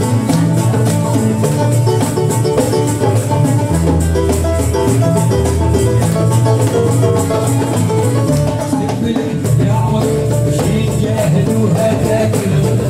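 Live band playing an upbeat dance tune: plucked oud and acoustic guitars with keyboard over a fast, steady percussion beat.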